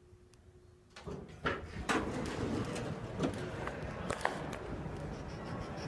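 A faint steady hum inside the closed Otis elevator cab gives way about a second in as the doors slide open onto the lobby's room noise. Several sharp clicks and knocks follow, footsteps on a hard floor as someone steps out of the cab.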